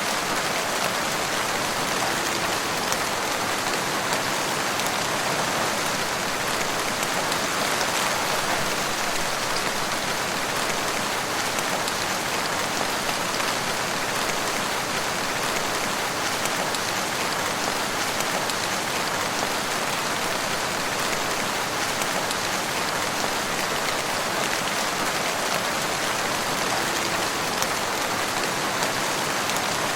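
Steady rain falling in a forest, an even hiss of many drops with faint individual drop ticks.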